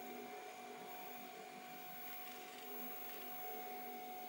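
Quiet, steady background hum and hiss with a faint constant whine; no distinct handling sounds stand out.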